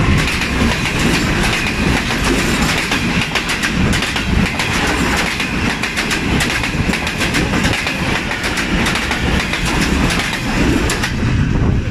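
Express train coaches passing at speed close by on the adjacent track: a loud, steady rush of wheel and air noise with a fast clickety-clack of wheels over rail joints, thinning slightly near the end as the last coaches go by.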